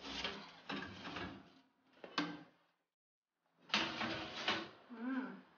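Oven door and metal wire rack being handled: rattling and scraping, a sharp clank about two seconds in, then more scraping with a brief squeak near the end.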